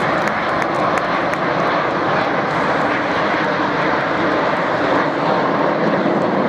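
Military aircraft flying over at an air show: a steady rush of aircraft engine noise with no break.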